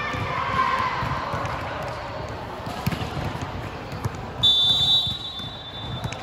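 Volleyball referee's whistle blown once, a steady shrill tone of about half a second, about four and a half seconds in, the signal for the server to serve. Before it, players' voices and a volleyball being bounced on the court.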